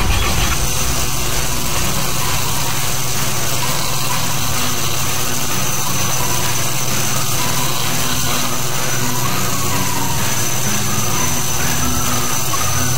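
A small electric motor running steadily, with a low hum and a thin high whine.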